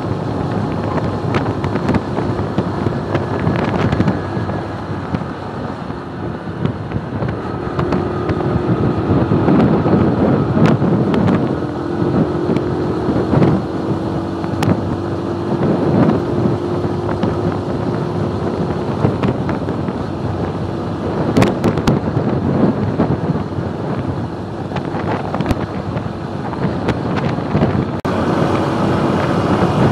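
Motorcycle running at a steady cruise, its engine note drifting slightly up and down with speed, under heavy wind noise on the microphone.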